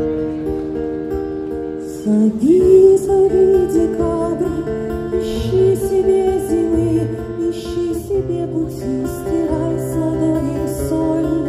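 Woman singing a slow melody with acoustic guitar accompaniment, amplified live through a PA. The guitar plays alone for about two seconds before the voice comes in.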